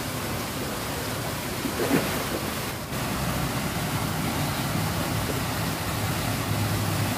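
Steady rushing water noise, even and hissing, with a faint low hum coming in partway through.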